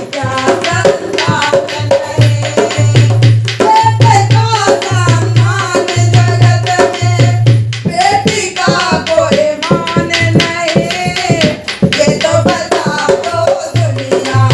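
A woman singing a Hindi devotional bhajan in a folk style, accompanied by a dholak barrel drum played by hand in a steady, driving rhythm.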